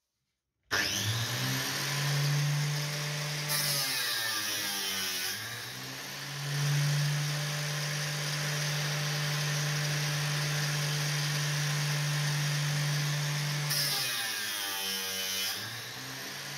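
Electric grinder running steadily while the tips of metal grille bars are sanded. It starts abruptly, and its pitch sags and recovers about four seconds in and again near the end as the work is pressed on.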